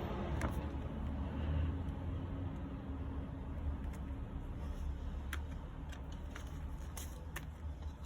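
Low steady rumble with a few light clicks and taps scattered through, denser in the second half, as a CD and its plastic jewel case are handled.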